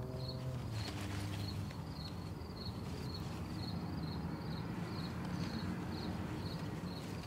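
A cricket chirping steadily at a high pitch, a few chirps a second, over a low steady hum.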